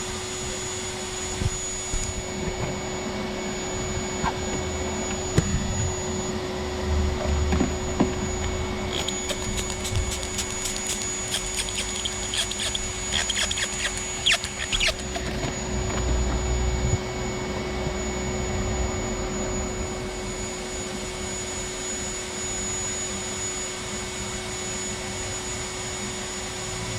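Shop vac in blower mode running steadily with a constant whine, pressurising the exhaust system for a leak test. About a third of the way in, a rapid run of fine crackling clicks lasts several seconds.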